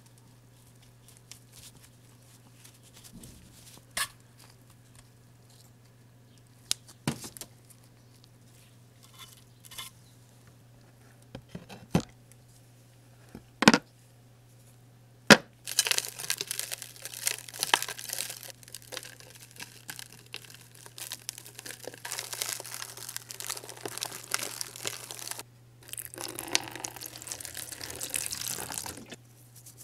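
Sharp clicks and snaps from small parts of a toy model car being handled and pried apart, scattered through the first half. Then a long gritty rustling hiss starts and runs for about ten seconds, and after a short break water pours into a plastic tub over the powdered parts.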